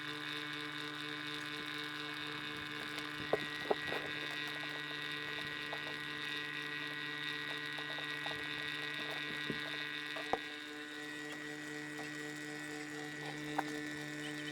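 A steady electrical or machine hum of several held tones, with a few faint clicks scattered through it.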